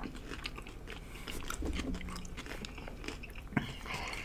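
Close-miked chewing and crunching of hard, nacho-flavoured taco shells, as a series of short crackles, with one sharp click about three and a half seconds in.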